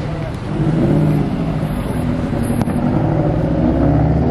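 A lowered sedan's engine and exhaust as it pulls away slowly, revs rising gently a couple of times.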